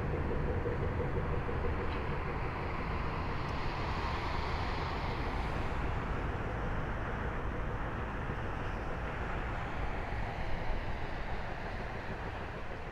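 Four jet engines of a Boeing 747-400F freighter at climb power as it flies away after takeoff: a steady, deep jet rumble that slowly grows fainter.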